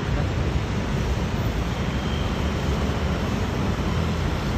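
Steady low rumble of city traffic on the expressway and streets below, with no separate events standing out.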